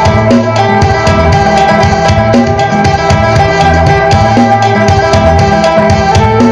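Isan phin, a three-stringed Thai-Lao lute, plucked in a fast stream of notes over steadily sounding drone tones, playing a traditional lai melody.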